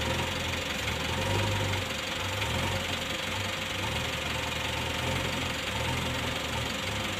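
Heavy diesel engine running steadily, with a low throbbing that swells and fades every second or so.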